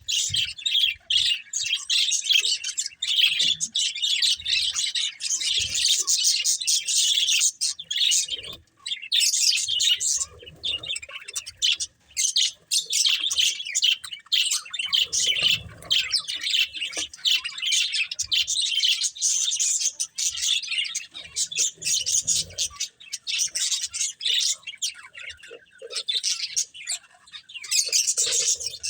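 Budgerigars chirping and warbling in continuous, busy chatter, with a few soft low knocks now and then.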